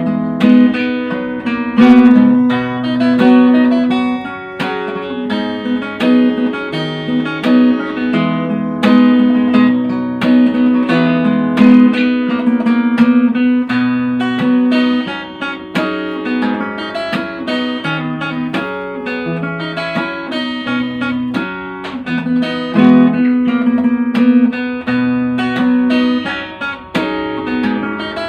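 Instrumental background music: quickly plucked notes over a held low note, with no singing.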